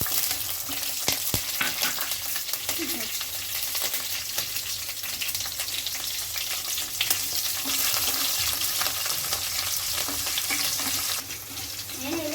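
Slit green chillies and tempering spices with curry leaves frying in hot oil in a kadai: a steady sizzling hiss with fine, rapid crackles.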